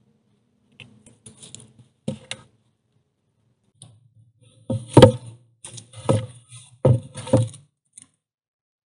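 Hollow wooden knocks from logs of a stacked log wall being handled and bumped: a pair of light knocks about two seconds in, then four louder knocks over the second half, with rustling of handling in between.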